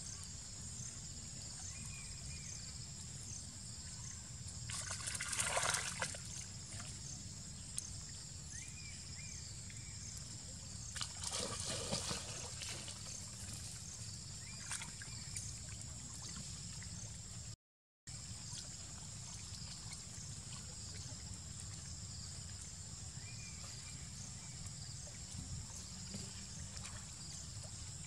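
Macaques moving and splashing in shallow muddy water, with two louder bursts of splashing about five and eleven seconds in.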